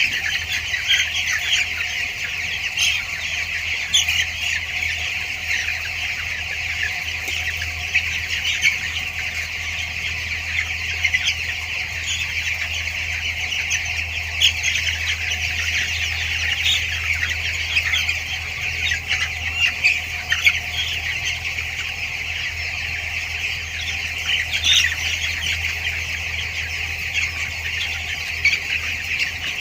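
Dense, continuous peeping of a large flock of two-week-old broiler chicks, with a steady low hum underneath.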